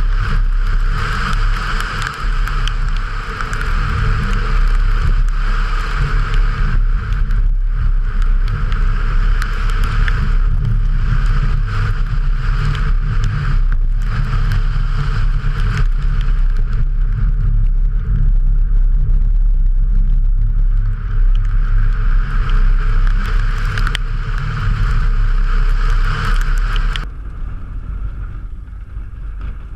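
Subaru Impreza turbo's flat-four engine pulling hard at rally pace, mixed with heavy road and wind noise. Near the end the sound becomes suddenly quieter and duller.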